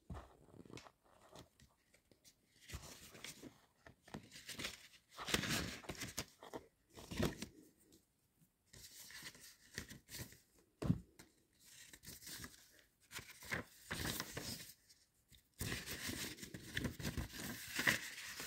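Parcel packaging being torn open and rustled by hand, in irregular short bursts with brief pauses between them.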